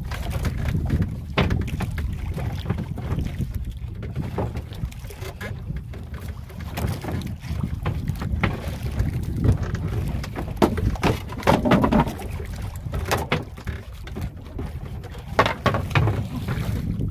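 Steady low rumble of wind and water around a small wooden outrigger boat at sea, with scattered knocks and clicks as a fishing handline is hauled in by hand and handled on a spool.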